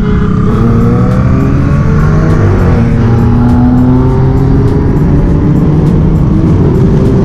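Audi A7 engine pulling hard under acceleration, its pitch slowly climbing over the first few seconds, heard from inside the car with music playing.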